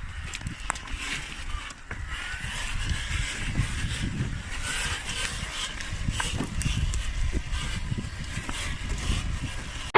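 RC crawler truck on a Traxxas TRX-4 chassis crawling over rough ground: an uneven low rumble with scattered clicks and knocks.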